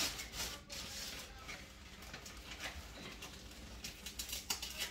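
Faint rustling with scattered light taps and clicks from things being handled at the kitchen counter, with a few sharper clicks near the end.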